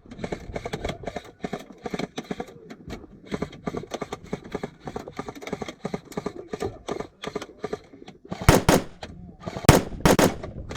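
Airsoft guns firing rapid strings of shots, with louder, closer bursts over the last couple of seconds.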